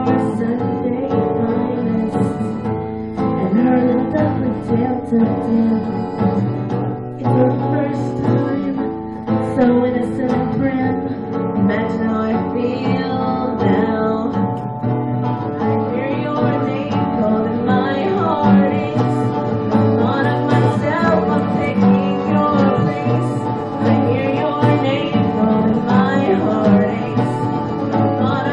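Live acoustic band playing a song: strummed acoustic guitar and fiddle, with a woman singing.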